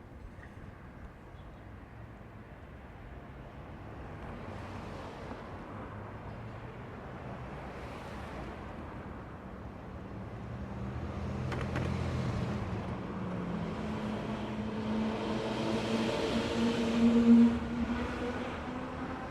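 Road traffic passing on a city street: several vehicles go by one after another, and a motor vehicle's engine hum builds up and is loudest about three quarters of the way through.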